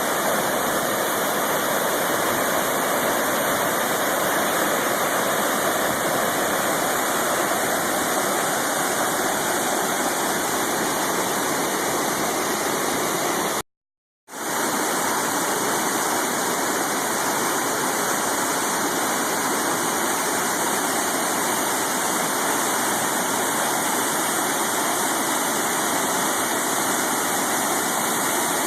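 Sol Duc River whitewater and falls rushing steadily. It cuts out completely for about half a second near the middle, then resumes.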